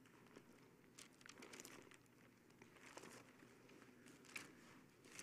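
Near silence with faint, scattered crinkling rustles of thin Bible pages being turned to a passage.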